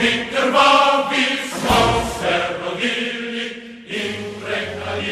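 A choir singing, with held notes, slowly getting a little quieter toward the end.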